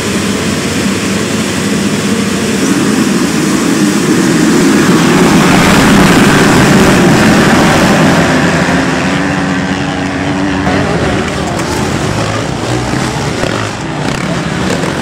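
A pack of motocross bikes at full throttle off the start gate, many engines running together. It builds to its loudest around the middle, then eases as a few single bikes stand out.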